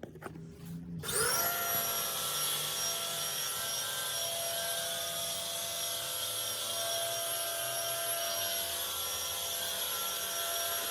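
A vacuum cleaner switched on about a second in, its motor quickly spinning up to a steady whine with a rush of air.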